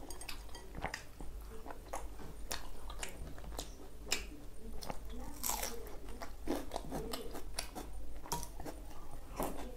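A person chewing and crunching food with irregular mouth clicks, with a loud sharp crunch about four seconds in as a piece of raw onion is bitten.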